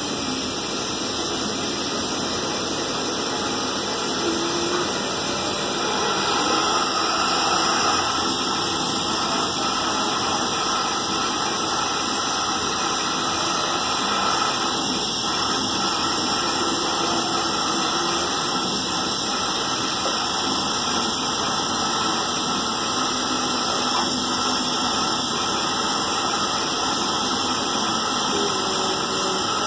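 Gas welding torch and its air feed running with a steady rushing hiss.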